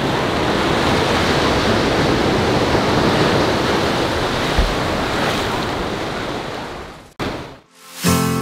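Ocean surf washing onto the sand and rocks, with wind buffeting the microphone, a steady rush that fades out about seven seconds in. Music begins near the end.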